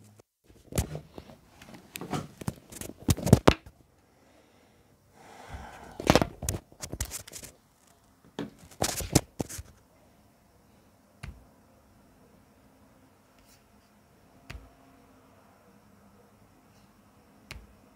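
Handling noise: clicks, knocks and rustles of things being moved about, in busy clusters through the first ten seconds or so, then just a few single clicks several seconds apart.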